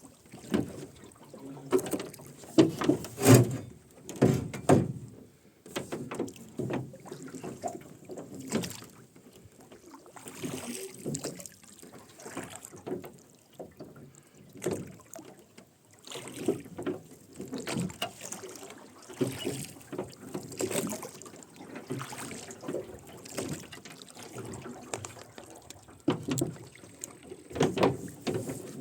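Rowboat being rowed: the oars creak and knock in their oarlocks and the blades splash, repeating with each stroke every second or two.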